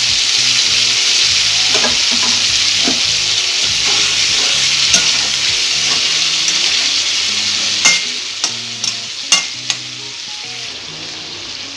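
Marinated katla fish pieces sizzling loudly in hot oil in a kadai, the sizzle easing off over the last few seconds. A metal spatula knocks against the pan a handful of times in the second half.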